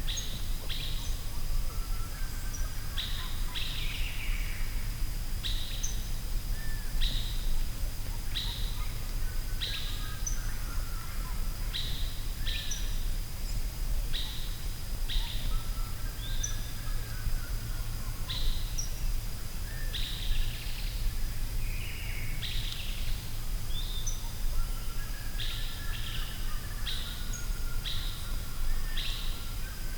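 Birds calling in a forest: one bird repeats a short, high chirp every second or two, while others call more softly and lower, over a steady low rumble and a thin, steady high tone.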